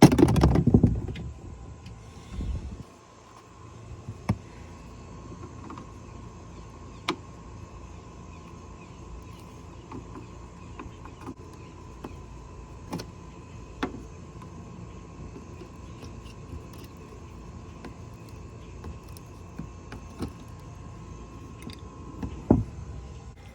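Scattered light clicks and knocks of plastic trim clips and a small access door being pried out of the Dodge Magnum's hatch trim, a few seconds apart. Under them runs a steady low hum with a thin constant tone. A louder burst of handling noise comes at the very start.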